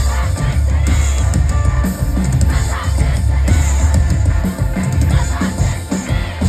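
Live pop-rock band with drum kit playing loud, with sung vocals over it, as heard from within the concert crowd.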